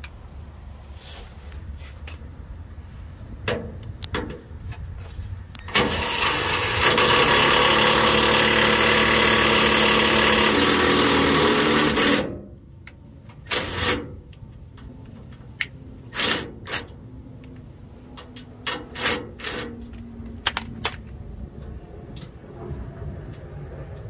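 Milwaukee cordless impact driver with a 10 mm socket hammering a bolt on a van's frame rail: one long run of about six seconds, then several short bursts as the bolt is snugged down.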